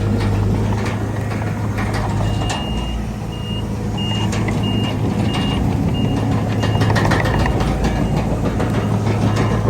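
Heavy diesel engine of earthmoving equipment running steadily, with a reversing alarm beeping about twice a second from about two seconds in, fading out after about seven seconds. Scattered metallic clanks run through it.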